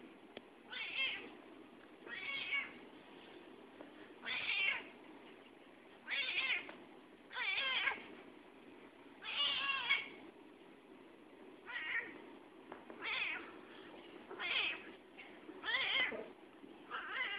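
A domestic cat meowing over and over: about eleven drawn-out meows, one every second and a half or so.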